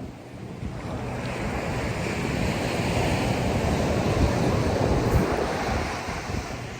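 Ocean surf: a wave builds and washes in, loudest in the middle and ebbing near the end, with wind buffeting the microphone.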